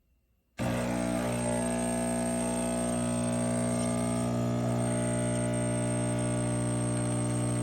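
The De'Longhi Dedica Arte espresso machine's vibratory pump switches on about half a second in and runs with a loud, steady buzz, pushing water through the coffee puck to brew an espresso shot.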